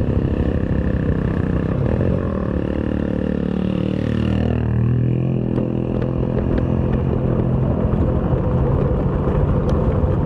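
Motorcycle engine running on the road. The revs ease off until about four seconds in, then climb again as it picks up speed.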